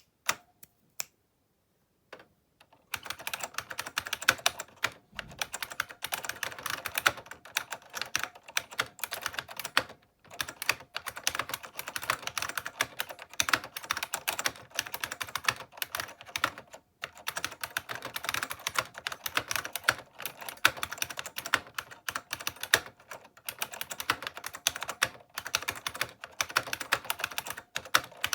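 IBM Model M buckling-spring keyboard being typed on: a few single key clicks, then fast continuous typing from about three seconds in, with brief pauses.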